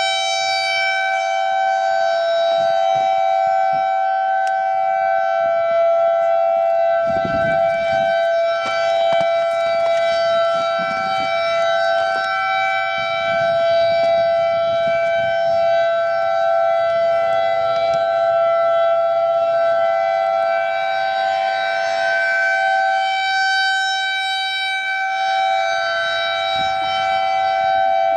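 Civil defense warning sirens, a Federal Signal 2001-SRN and an ASC I-Force, sounding a steady alert signal: two close pitches held without rising or falling, swelling slightly in loudness. A brief low rumble about seven seconds in.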